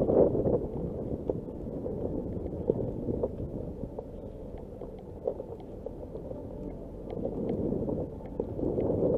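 Nissan Qashqai driving slowly on a loose gravel dirt track: a low rumble of tyres and suspension over the rough surface, with small stones ticking now and then. The rumble swells near the start and again shortly before the end.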